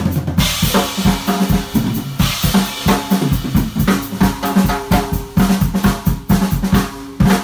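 Solo drum kit played fast: a dense run of snare, tom and bass drum strokes, with a cymbal crash about a third of a second in and another about two seconds in.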